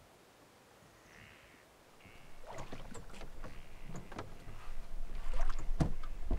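Small boat on water: irregular knocks and splashes of water against the hull, starting about two seconds in and growing louder, over a low rumble.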